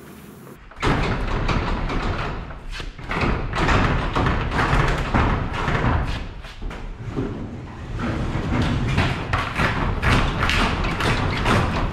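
Large corrugated sheet-metal hangar doors being pushed open by hand, rattling and rumbling with many knocks and thumps. The noise starts about a second in and keeps on.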